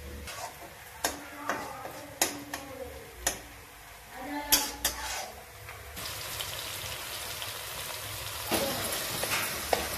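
A metal spoon clanks and scrapes in a kadai with several sharp knocks, then onion-tomato masala sizzles steadily as it fries and is stirred, louder near the end.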